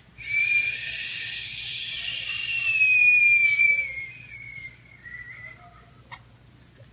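A person whistling one long note that climbs slightly, is loudest about three seconds in, then glides slowly down in pitch and fades out.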